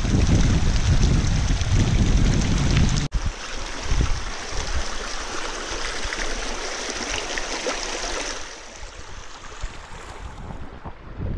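Shallow mountain stream rushing over stones, a steady hiss of water. For the first three seconds wind rumbles on the microphone, and the rushing gets noticeably quieter after about eight seconds.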